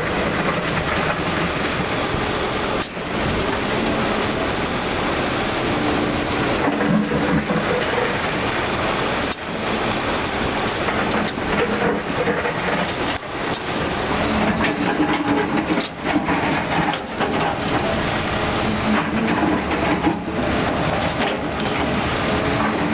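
Caterpillar 320D2 hydraulic excavator running at work: a steady, loud diesel engine and hydraulic noise, broken by a few brief dips.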